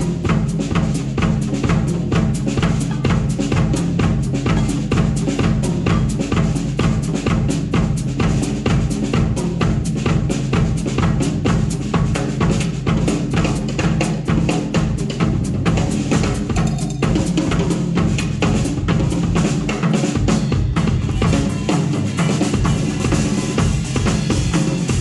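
Music led by a drum kit playing a fast, steady beat of about four to five strokes a second, over a full band.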